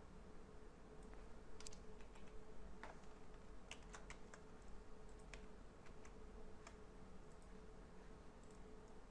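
Faint, irregular clicking of a computer keyboard and mouse, a dozen or so scattered clicks over several seconds, with a faint steady hum underneath.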